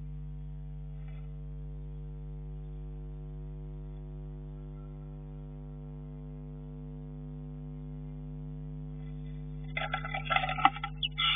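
Steady electrical hum made of several evenly spaced tones, picked up inside a wooden bird box. About ten seconds in, a sudden, loud, ragged scuffle breaks out as two blue tits start fighting in the box.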